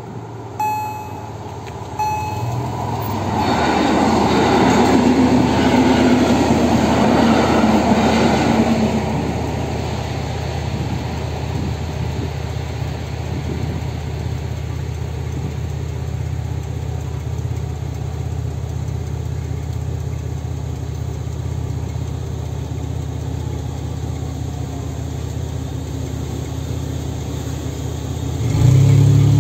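Level-crossing warning loudspeakers (EHL-S10, Kombud modulation) sounding a repeated short tone that stops about two seconds in. Then a train runs over the crossing with loud wheel-on-rail noise for about six seconds, easing to a steady low hum. Near the end a car engine revs up as it pulls away.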